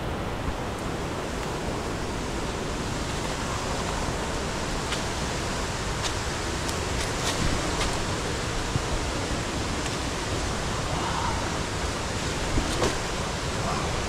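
Steady rushing roar of a waterfall, with a few faint clicks partway through.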